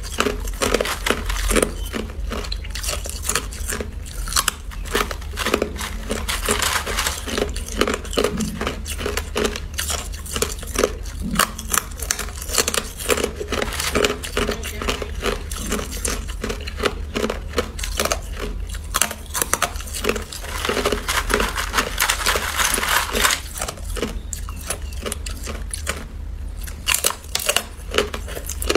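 Chunks of hard clear ice crunched and chewed in the mouth, close to the microphone: a dense, unbroken stream of sharp cracks and crunches, over a low steady hum.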